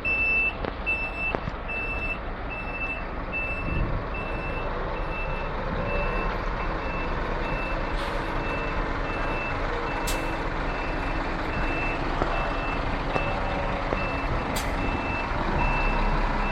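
Concrete pump truck's reversing alarm beeping steadily at a single high pitch, about one and a half beeps a second, over the truck's engine running as it backs up. A few brief sharp clicks or hisses come through in the second half.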